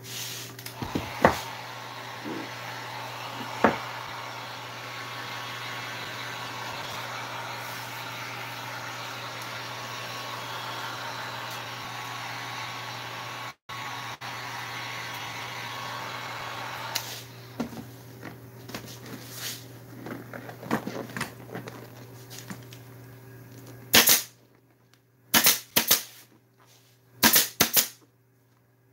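Electric heat gun blowing steadily, warming the vinyl seat cover so it can be stretched over the contours; it stops about two-thirds of the way through. Near the end a pneumatic staple gun fires several sharp shots in quick succession, stapling the cover to the tractor seat pan.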